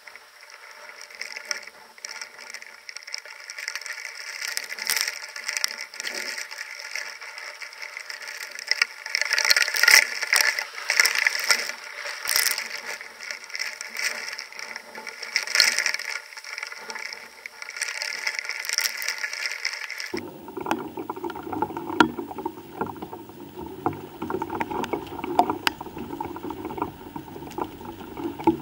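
Storm rain pattering and splashing, with many sharp ticks, then an abrupt switch about twenty seconds in to a fuller, lower-pitched rain sound.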